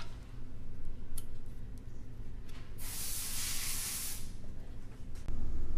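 A burst of compressed air hissing out of a compressor fitting for about a second and a half, after a few light metal clicks, over a steady low hum that grows louder near the end.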